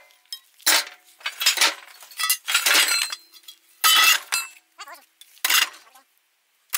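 Heavy scrap steel parts clanking as they are tossed onto a pile of other scrap: about six loud metal-on-metal clanks, each ringing briefly.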